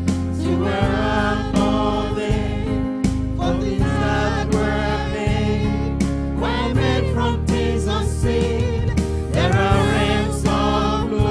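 Gospel choir and lead singer singing with keyboard accompaniment, a steady sustained bass under the voices; the sung line is "For things that were made were made from things unseen."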